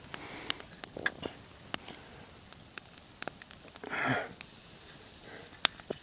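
Campfire crackling: scattered, irregular sharp pops and snaps, with one louder pop near the end.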